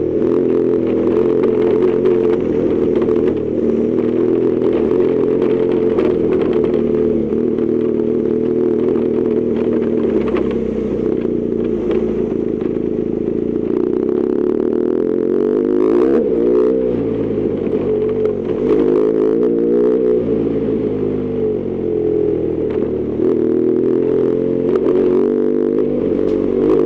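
BMW R1200GS Adventure's flat-twin engine running under way, with the revs dipping and rising as the rider shifts and modulates the throttle. A few clattering knocks from the gravel track come about two-thirds of the way in.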